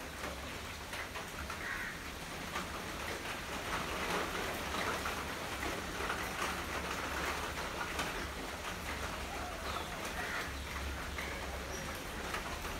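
Steady rain falling on puddles and wet ground, a dense pattering of drops, with a few faint short bird calls.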